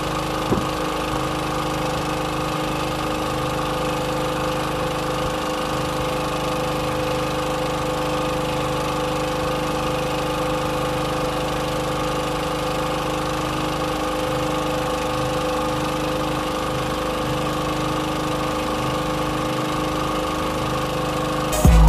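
Boat engine idling steadily with an even hum.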